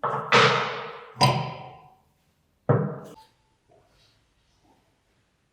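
Four sharp metallic knocks, each ringing briefly as it dies away, then a few faint small taps.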